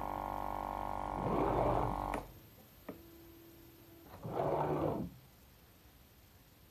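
DIY pick-and-place machine at work placing a part: a steady motor buzz with a low hum for the first two seconds, a couple of sharp clicks, a short steady whine, and a brief rushing burst about four and a half seconds in.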